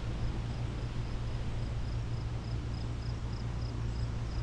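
An insect chirping steadily in short high pulses, about three a second, over a steady low rumble.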